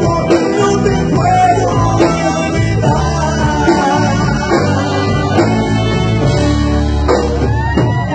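Live band music with men singing over it, played loud and steady.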